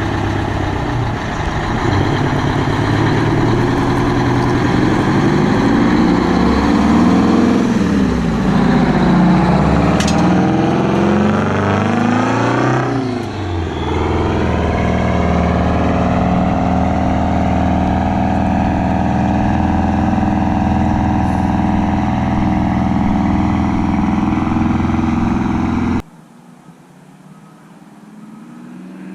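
Detroit Diesel 8V92 two-stroke V8 diesel in a 1985 Peterbilt, running through a freshly installed 5-inch straight exhaust stack. It is revved, rising in pitch for several seconds, then drops quickly back to a steady idle. Near the end the engine sound cuts off abruptly.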